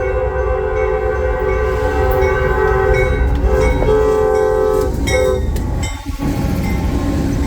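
Train horn sounding one long chord of several notes held together, cutting off about five seconds in, after which only the rumble of the train carries on.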